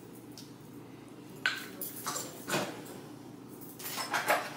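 A few light clinks and taps of a scoop against glass jars and their lids while chia seeds are spooned in, with a quick cluster of clinks near the end.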